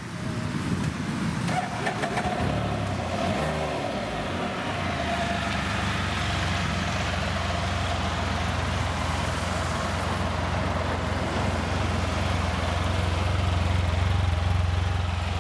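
Can-Am Spyder RT-S's 1330cc fuel-injected Rotax inline-three engine starting and settling into a steady idle through its Akrapovic exhaust, a little louder near the end.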